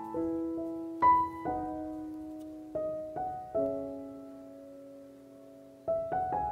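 Background piano music: slow, gentle notes struck one or a few at a time, each ringing on and fading, with a lull of held notes in the middle before new notes come in near the end.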